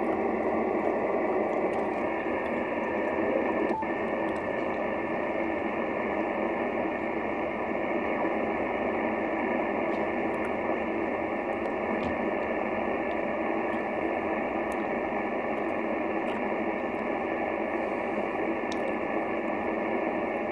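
Steady single-sideband receiver hiss and static from a Yaesu FT-950 HF transceiver's speaker, with no station coming through, as the set is tuned across the 10-metre band. A single click about four seconds in.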